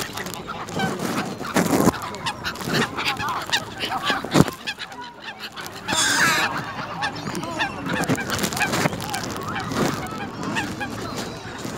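Greylag geese honking at close range, many short calls overlapping as the flock calls over one another, with a few sharp knocks and a brief rushing sound about six seconds in.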